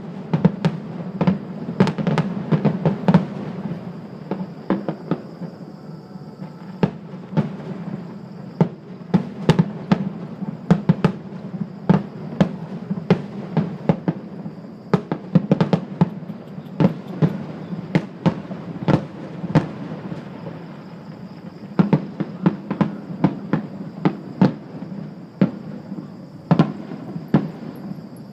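Aerial firework shells bursting one after another in a display, a long run of sharp bangs and crackles. The bangs come in busy clusters, with a thinner spell about five seconds in and another near the middle.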